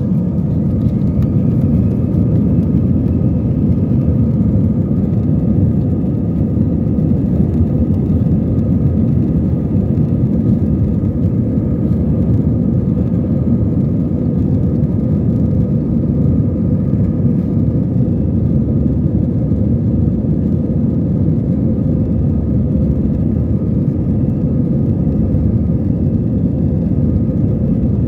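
Cabin noise inside a jet airliner taxiing: the engines run at low power with a steady rumble and a faint hum.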